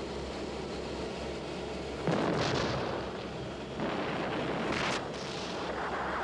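Heavy explosive blasts over a steady low rumble: a sudden blast about two seconds in that dies away over a second, a second just under four seconds in with a sharp crack near five seconds, and another near the end.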